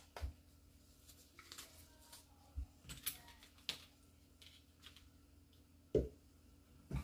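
Faint clicks and taps of small plastic items being handled: nail swatch sticks and a gel polish bottle. Two louder dull thumps come about a second apart near the end.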